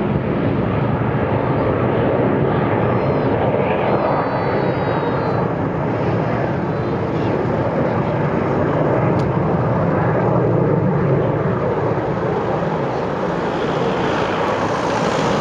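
A formation of BAE Hawk T1 jet trainers flying overhead after takeoff, their jet engines making a steady, loud rushing noise.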